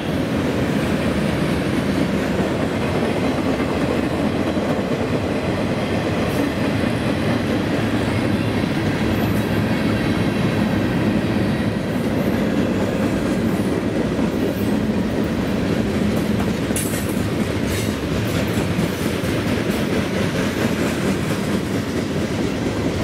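Freight cars of a CSX mixed freight train, covered hoppers and tank cars, rolling past close by: a steady noise of steel wheels running on the rails.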